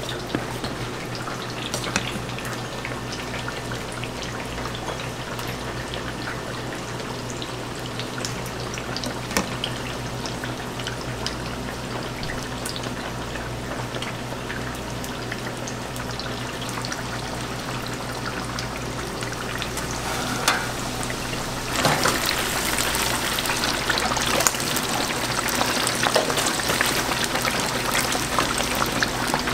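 Deep-fried breaded pork cutlets sizzling in a commercial fryer's oil, over a steady low hum, with a few light clicks. About 22 seconds in, the sizzle turns abruptly louder and brighter and stays that way.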